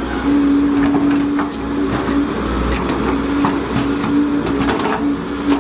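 Volvo EC210DL hydraulic excavator working: the diesel engine runs steadily with a humming tone that drops out and returns, and there are scattered clanks.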